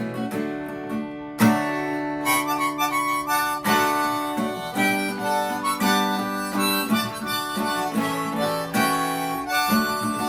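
Strummed acoustic guitar with a harmonica playing an instrumental break. The harmonica comes in loudly about a second and a half in, mixing long held notes with quick runs.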